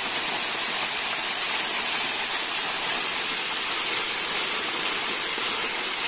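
Waterfall's water pouring down and splashing, a steady, mostly high-pitched hiss.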